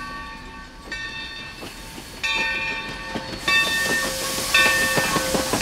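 Steam locomotive hauling passenger coaches past at speed: wheels clicking over rail joints under a hiss of steam, growing louder about halfway through as it draws near.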